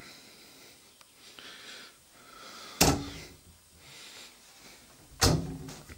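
Built-in wardrobe doors knocking shut twice, about two and a half seconds apart, with faint rustling in between.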